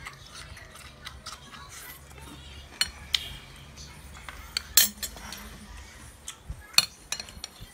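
Metal spoon clinking and scraping against a china plate as it is pushed through mussels in broth, with a few sharper clinks about three, five and seven seconds in.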